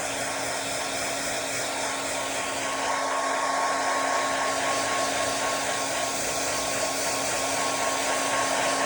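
Blow dryer running steadily on its fan setting with no heat: a continuous rush of air over a motor hum and a thin steady whine, getting a little louder about three seconds in.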